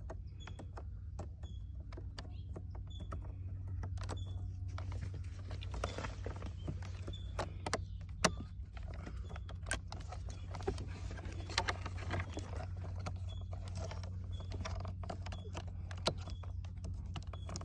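Scattered plastic clicks and knocks of hands fitting wiring connectors and trim pieces into a Hyundai Genesis G90 center console, with one sharper click about eight seconds in, over a steady low hum.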